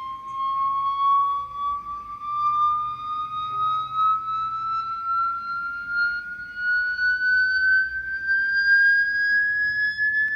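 An electronic test tone, a single pure note gliding slowly and evenly upward in pitch: a frequency sweep played through a speaker.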